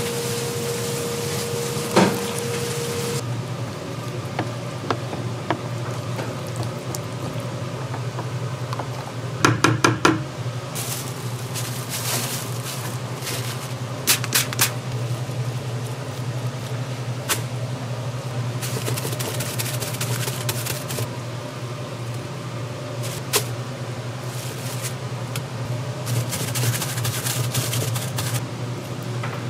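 Kitchen work sounds over a steady low hum: scattered clicks and clatters of utensils and cookware, including a quick run of several clicks about ten seconds in.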